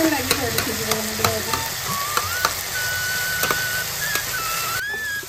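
Food sizzling in a pan as it is stirred, with irregular sharp clicks of a spoon against the pan. Background music plays a high, stepped melody over it.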